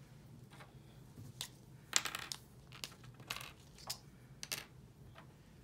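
A series of small, sharp clicks and taps, about eight over five seconds with the loudest about two seconds in: pens being handled and taken apart to compare their refills.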